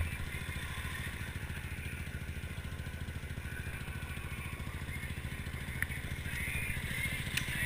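ATV engine idling steadily, a low even pulsing, getting a little louder near the end.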